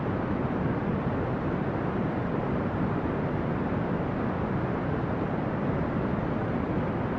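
Brown noise: a steady, deep, even hiss with its weight in the low range, unchanging throughout.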